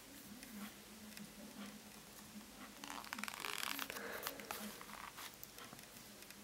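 Paper rustling as the cover and pages of a handmade paper book are turned open: one brief crinkling swish about three seconds in, with a few light paper taps around it.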